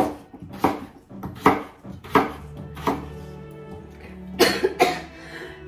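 Kitchen knife chopping raw potatoes on a cutting board: about seven sharp, unevenly spaced strokes, with music playing underneath.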